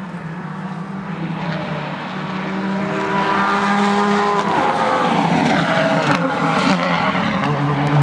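Rally car engine approaching at speed and getting louder; about halfway the revs drop and then climb again as it drives through, with a few sharp cracks around six seconds in.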